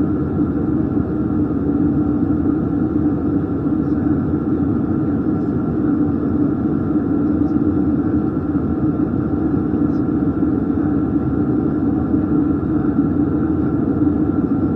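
Steady cabin noise of an Airbus A320 in flight: engines and airflow making an even, unchanging noise with a faint steady tone above it.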